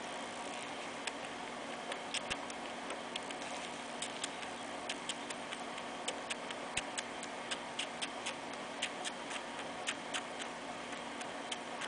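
Irregular quick clicking, two or three clicks a second, from a baby squirrel suckling milk from the tip of a feeding syringe, over a steady low hum.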